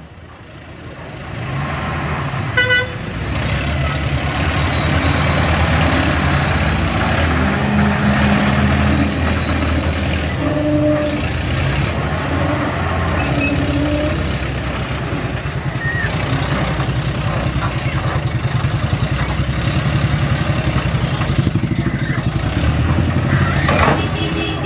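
Heavy diesel engines running steadily and loudly as the loaded Ashok Leyland lorry, stuck in mud, works to pull free with a mobile crane behind it. A short horn toot comes about three seconds in.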